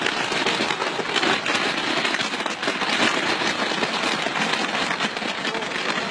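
Fireworks burning in a long column of fire rising into the sky: a dense, steady crackling with no single big bangs.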